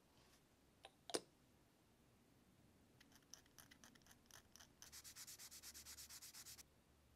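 A fine hobby tool scraping paint off a small painted plastic model part where it is to be glued: faint scratching strokes from about three seconds in, then fast, even rubbing at about ten strokes a second for nearly two seconds. A sharp click about a second in.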